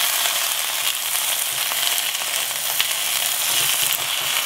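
Rinsed yu choy greens sizzling and frying in a very hot oiled pan as they are turned with a wooden spatula. It is a steady, dense hiss with a few faint ticks, from the water left on the leaves hitting the hot oil.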